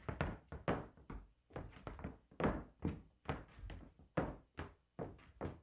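Dance shoes striking a wooden floor as a couple steps through a polka figure: quick, irregular knocks of leather soles and heels, about three a second, stopping abruptly near the end.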